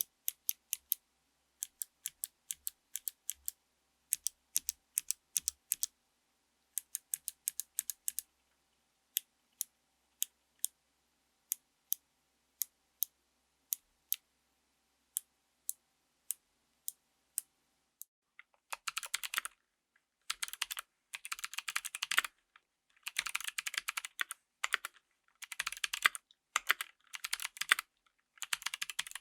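Keyboard with Kailh Speed Bronze clicky switches: keys pressed one at a time, each giving a sharp, crisp click, then from about eighteen seconds in fast typing with dense runs of clicks.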